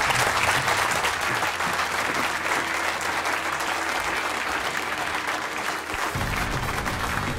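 Studio audience applauding, with the show's closing theme music playing under it; the music's bass and beat come in strongly about six seconds in.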